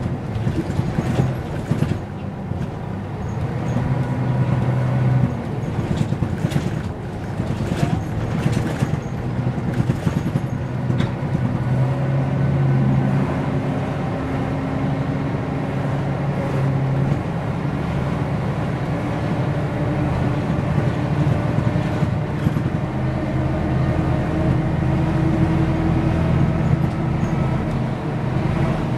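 Mercedes-Benz O405 N² city bus heard from inside the passenger cabin while driving: the rear-mounted OM447 six-cylinder diesel drones with road noise, its pitch rising and falling with speed. A few rattles and knocks come between about six and ten seconds in.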